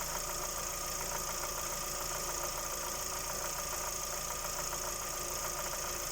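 Lada Vesta 1.6 engine running steadily with a fast, even ticking knock, which the owner puts down to the camshaft on an engine with only 1400 km on it.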